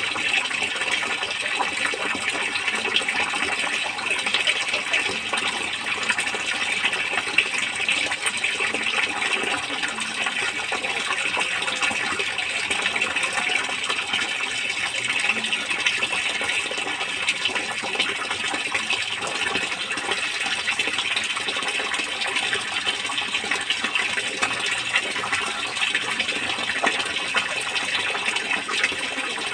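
Water in a fish-rearing tank splashing and rushing steadily, a constant hiss of running water with no break.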